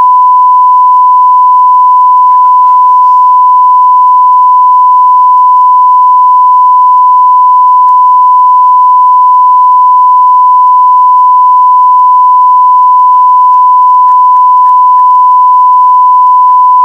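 A loud, steady, unbroken censor-style bleep tone, one fixed high pitch held for over sixteen seconds, laid over the audio and masking speech.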